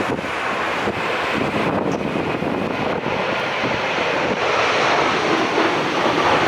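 Strong wind buffeting the microphone over the steady jet noise of a Boeing 787-8 on landing approach. The sound grows slightly louder about four seconds in.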